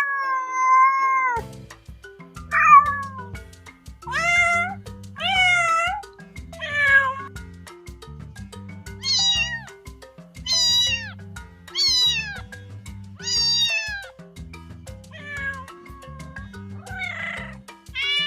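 Domestic cats meowing, a string of about eleven separate meows each rising then falling in pitch, one every second or two, with a couple sounding rougher. Background music plays underneath.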